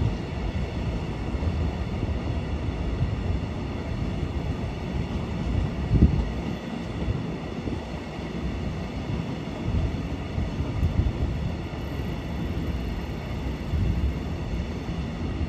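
Long freight train of covered hopper wagons rolling slowly past, a steady low rumble of wheels on the rails with irregular knocks, the loudest a sharp thump about six seconds in.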